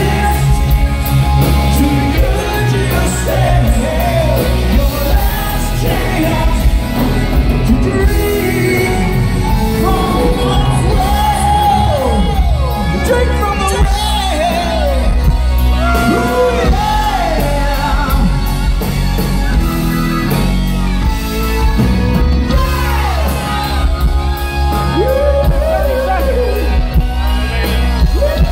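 Live rock band playing a song with a lead vocal over keyboards, drums and bass, loud and steady, in a large hall's echo.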